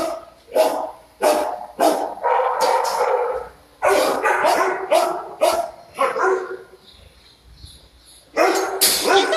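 Shelter dogs barking over and over in a kennel room, sharp barks about every half second to second, each trailing off in echo from the hard walls. The barking drops to a lull about two-thirds of the way through, then comes back loud near the end.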